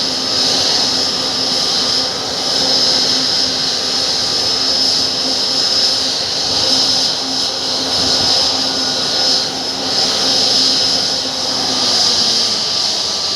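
Jet airliner engines running close by, a loud steady high-pitched whine over a lower hum.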